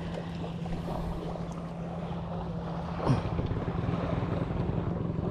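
An engine running steadily with a low hum, with wind noise on the microphone. There is a short louder sound about three seconds in.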